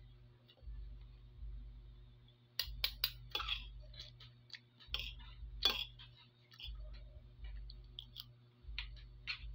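Metal cutlery clinking and scraping against a plate while eating, a scatter of sharp clicks and taps, thickest in two clusters around three and five to six seconds in.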